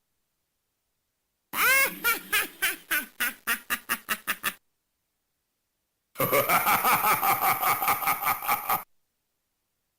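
Halloween toy's sound chip playing two short electronic sound effects, recorded straight from its speaker wires and separated by dead silence. The first is a run of pitched, chattering pulses that come faster and faster; the second is a pulsing sound of about five pulses a second that lasts a couple of seconds and stops abruptly.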